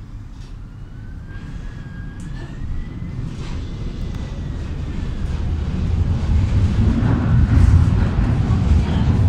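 Interior running noise of a Bucur V2A-T tram: a low rumble of wheels on rails that grows steadily louder as the tram gathers speed, with a faint whine rising in pitch about a second in.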